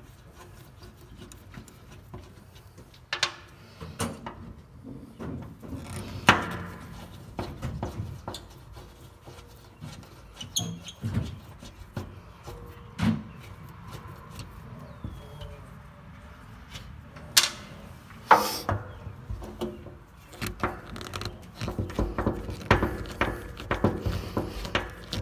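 Steel screwdriver working at rusted screws on a steel fuel-tank plate: scattered clicks, scrapes and a few sharper metal knocks, the clicking growing busier near the end.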